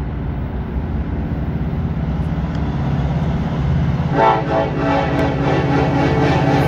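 Norfolk Southern freight train's diesel locomotives approaching with a steady low rumble. About four seconds in, the locomotive's air horn starts blowing a held chord that keeps sounding.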